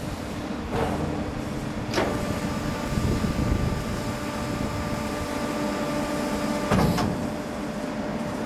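Steel drum crusher's hydraulic power pack running with a steady hum that changes pitch about two seconds in, as the crushing chamber door slides shut. Sharp metallic clanks about a second in, about two seconds in and near seven seconds.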